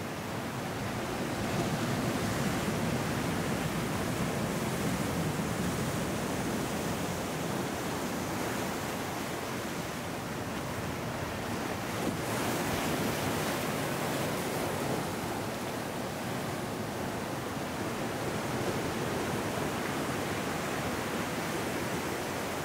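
Ocean surf washing in among rocks and over sand, a steady rush with no let-up. It swells as waves come in, about two seconds in and again about twelve seconds in.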